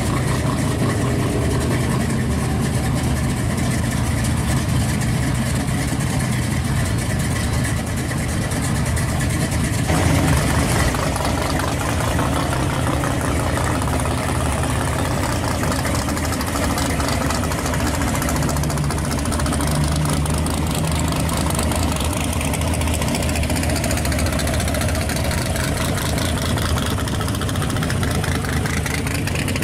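Engines of lowered Chevrolet S-10 pickups idling as the trucks roll slowly past. There is a short rev about ten seconds in and a rising rev near the end.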